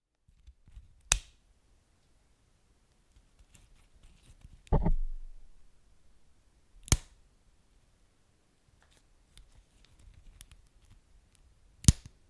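Wood fire crackling: sharp single pops about a second in, near seven seconds and near the end, and a heavier, deeper pop about five seconds in that dies away over a second, with faint small crackles between.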